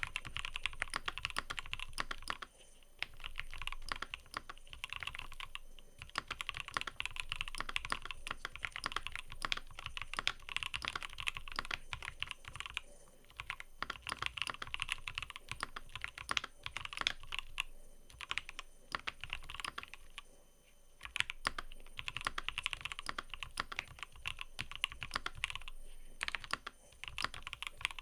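Typing on a mechanical keyboard: a quick, continuous run of key clacks in bursts, with a few brief pauses between them.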